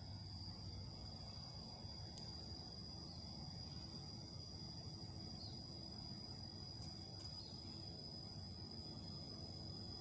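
Insects trilling steadily at two high pitches over a low background rumble; the higher-pitched trill stops about eight seconds in.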